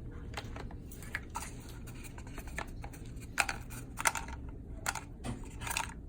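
Irregular small clicks and taps of hard pet treats being handled and dropped into a cardboard paper towel tube, a few louder ones in the second half.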